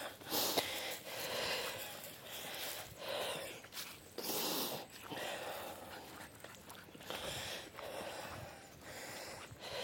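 A person breathing in and out through the mouth while walking, a soft breath roughly once a second.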